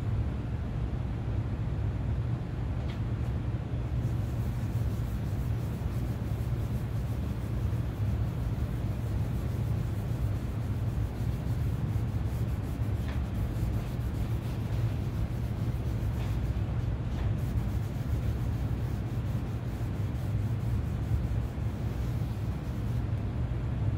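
A cloth rag rubbing wood stain into a bare wooden guitar body, a faint papery scrubbing from a few seconds in until near the end, over a steady low hum.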